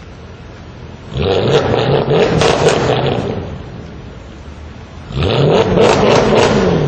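Mercedes-Benz C63 AMG's 6.2-litre V8 revved twice from idle through its quad exhausts, each rev rising and falling over about two seconds, with a few sharp crackles near the top.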